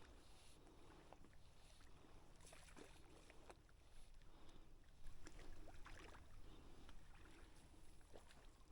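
Near silence: a faint low rumble with a few scattered light clicks.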